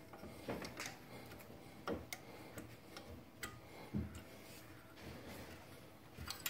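Faint, irregular metal clicks and taps, about eight of them, as small tools and brake caliper hardware are handled.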